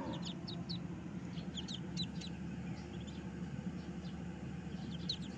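Ducklings peeping: clusters of short, high cheeps, several at a time, over a steady low background hum.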